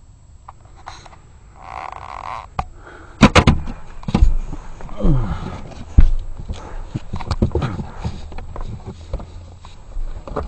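Irregular knocks, thumps and scuffing of a person moving about while crawling through an attic to run camera wire, the two loudest bangs about three and six seconds in.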